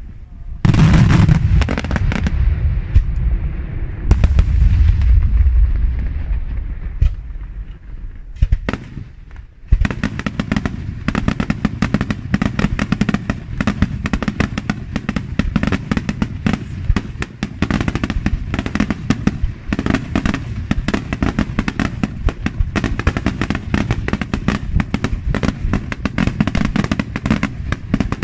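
Daytime fireworks shells bursting: a few heavy booms with a deep rumble in the first several seconds, then from about ten seconds in a dense, continuous rattle of rapid sharp cracks from crackling stars.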